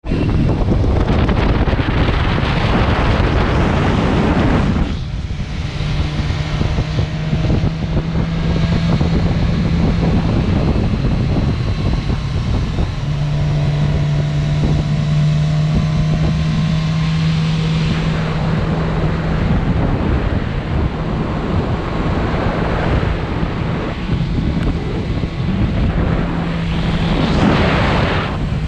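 Wind rushing over the microphone of a moving motorcycle, over the steady drone of the bike's engine at cruising speed. The wind noise swells briefly near the end.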